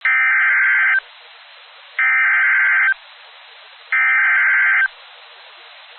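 Emergency Alert System SAME header: three bursts of digital data tones, each about a second long, with about a second of faint hiss between them. The bursts are the coded header of a severe thunderstorm warning, which sets off weather radios and alert receivers.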